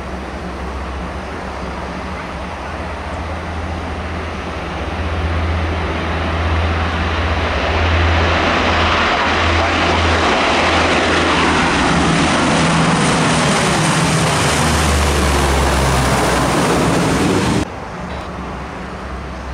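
The four turboprop engines of a C-130 Hercules military transport at takeoff power, growing louder as it rolls and climbs past, with a steady low propeller hum and a falling pitch as it goes by. The sound cuts off suddenly near the end to a quieter, steady distant turboprop engine noise.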